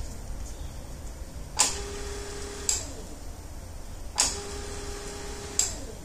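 A 12 V trolling motor switched on twice by a momentary foot switch through a relay. Each time there is a sharp click, then a steady motor hum for about a second, then a click as the switch is released and the hum winds down. The relay and foot switch are switching the motor on and off as intended.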